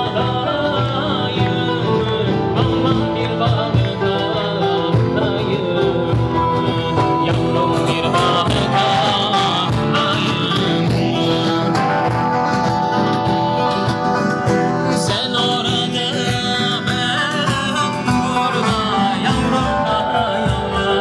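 Music playing without a break: a song with singing over instruments.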